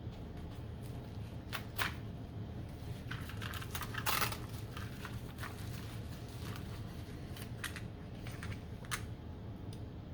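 Parcels of electronic parts being opened by hand: scattered crinkling and tearing of packaging with light clicks, with a louder rustle about four seconds in, over a low steady room hum.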